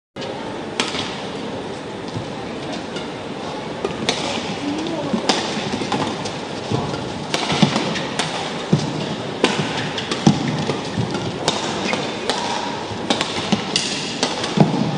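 Badminton rackets striking a shuttlecock in a fast doubles rally: a dozen or so sharp, irregular hits that come quicker in the second half, with short shoe squeaks on the court over steady background noise. The sound starts after a split-second dropout.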